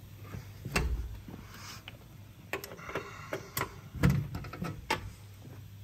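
Clicks and knocks of a key turning the latches on a screw compressor's sheet-metal enclosure panel, a string of short sharp clicks with heavier knocks near the start and about four seconds in.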